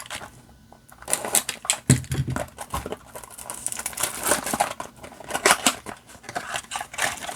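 Yu-Gi-Oh booster packs and their small cardboard boxes being handled: quick, irregular crinkling and rustling that starts about a second in.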